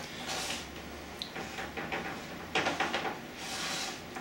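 Fingers pressing and spreading crumbly crust dough into a baking dish, making a few soft rubbing and scraping sounds.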